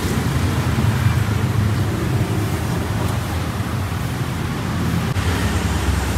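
Steady low engine hum, with a haze of wind noise on the microphone.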